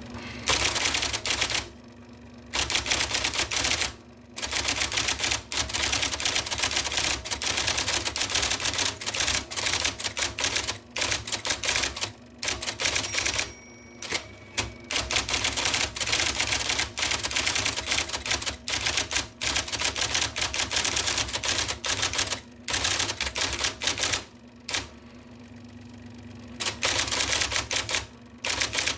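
1979 IBM Selectric II electric typewriter being typed on fast: the typeball strikes in long runs of quick, continuous clatter, broken by a few brief pauses. The electric motor hums steadily underneath.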